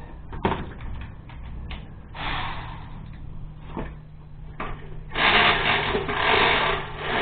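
Hand tools tightening the bolts of a motorbike exhaust mount: a few sharp metal clicks and three rasping bursts, the last two loudest, over a steady low hum.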